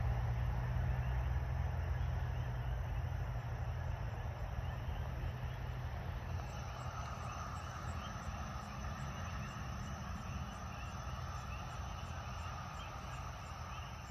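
Outdoor ambience: a low rumble fades out over the first five or six seconds, then a steady chirping sets in, with rapid high chirps about two or three a second over a steady mid-pitched buzz.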